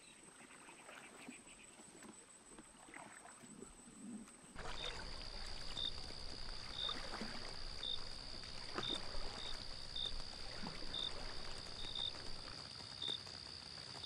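Quiet marsh ambience, then a sudden cut about four and a half seconds in to a night-time camera-trap recording: insects trilling steadily at a high pitch, with a short chirp repeating about once a second, over a hiss of water and a few soft splashes from a fishing cat wading.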